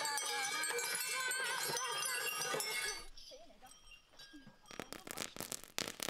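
Dense chime-like ringing with some wavering tones for the first three seconds, then a sudden drop. From about three-quarters of the way in, rapid irregular crackling and popping from pyrotechnic fountains showering sparks.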